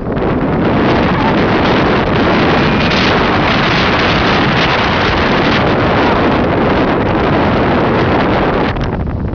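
Strong wind blasting across the microphone: a loud, steady rush of noise that thins a little near the end.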